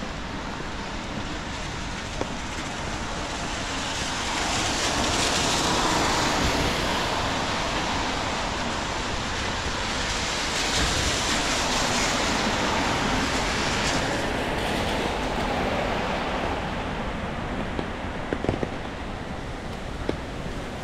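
Rain and traffic on a wet city street: a steady hiss that swells louder twice, around five and eleven seconds in, like tyres passing on wet road, with a few light ticks near the end.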